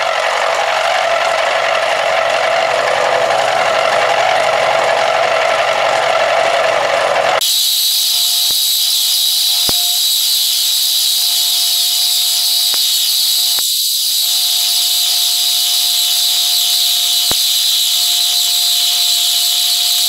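Milling machine running with an end mill skimming the rough face of a cast-iron casting: a steady, continuous cutting noise. About seven seconds in the sound abruptly turns thinner and hissier, with a thin steady tone and a few faint clicks.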